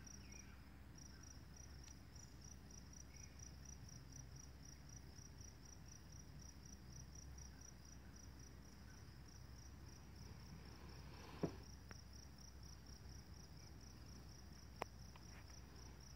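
Faint crickets chirping in a steady, high-pitched pulsing chorus that breaks off briefly near the start. A sharp click comes about eleven seconds in and a smaller one near the end.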